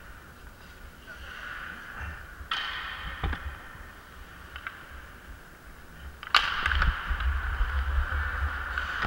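Ice hockey skates scraping and cutting across the ice, with a few stick clacks and one loud, sharp crack about six seconds in. After the crack, wind rumbles on the helmet-mounted microphone as the skater speeds up.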